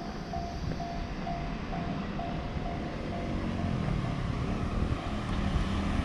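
A small box truck's engine running and growing louder as it approaches from about halfway through. Over it, in the background, a steady series of short high tones, about three a second, fades out midway.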